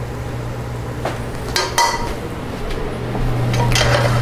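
Metal spatula scraping and clinking against a frying pan as sisig is pushed out onto a serving plate. A few sharp clinks come about one and a half seconds in and again near the end.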